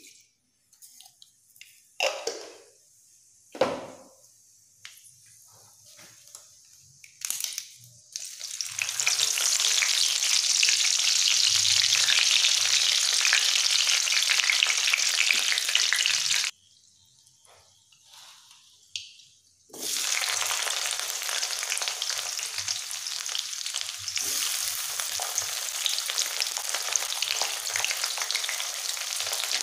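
Hot oil sizzling and frying loudly in a steel kadai as bay leaves and dried red chillies, and later sliced onions, go in. Before that there are a few seconds of near quiet with small clicks and taps as whole spices are tipped in. The frying cuts off suddenly about halfway through and starts again some three seconds later.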